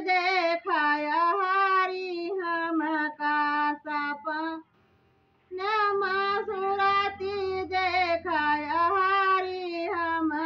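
A woman singing a devotional folk bhajan unaccompanied, in long held, wavering phrases. The singing breaks off a little past four seconds and starts again about a second later.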